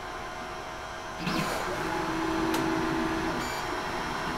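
Ender 3 Max 3D printer running, with a steady fan hum; about a second in its stepper motors start driving the print head, first a short rising whine and then a steady hum as it travels, with a couple of light clicks near the end. This is the printer moving into its first layer at the start of a test print.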